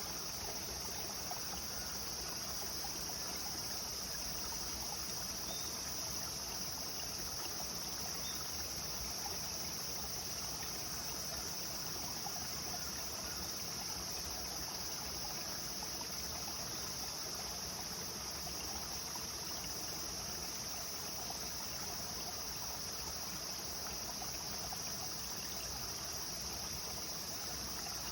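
Clear river water flowing steadily, with a continuous high-pitched insect drone over it.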